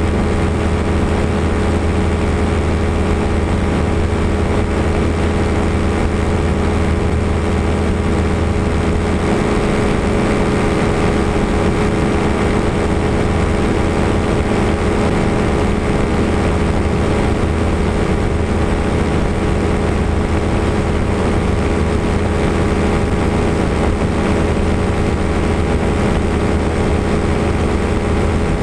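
Small ultralight airplane's engine and propeller running steadily at high power through the takeoff and climb, heard from the tail with wind rushing over the microphone. A low rumble underneath drops out about nine seconds in.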